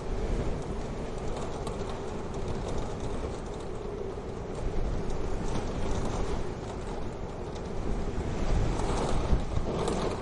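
Wood fire burning in a wood-burning stove: a steady low rush with scattered sharp crackles and pops.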